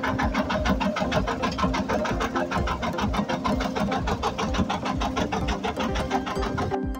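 A tractor engine running close by with a fast, even beat while it launches a boat into the water. The sound breaks off abruptly just before the end.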